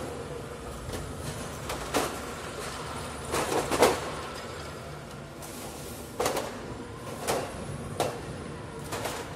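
Irregular knocks and clatters of plastic drinks crates holding glass bottles being handled and set down, each knock with a short ring. Under them runs a steady low hum.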